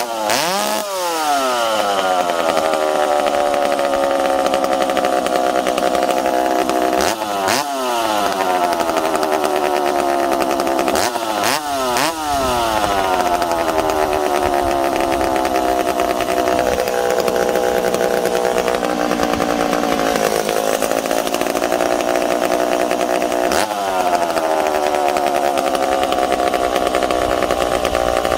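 Freshly ported and rebuilt McCulloch Super Pro 70 two-stroke chainsaw, with no bar or chain fitted, running continuously. It is blipped to high revs about five times, and each time the pitch leaps up and then sinks back over a couple of seconds. These are early heat-cycling runs of the new engine.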